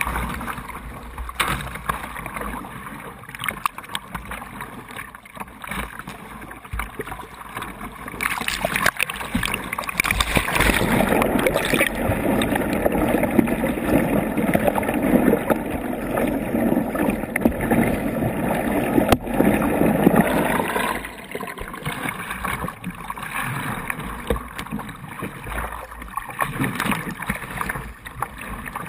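River water splashing and rushing around a whitewater playboat as the kayaker works it with paddle strokes. From about ten seconds in to about twenty-one seconds, water surges over the bow and the sound turns into a louder, muffled, gurgling rush with the microphone under water. The paddle splashes return near the end.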